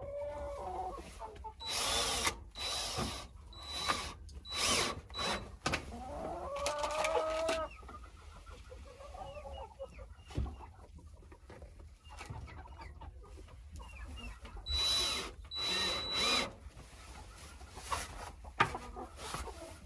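Hens clucking in a chicken coop, with a power drill run in short bursts: a run of them in the first half and two more later.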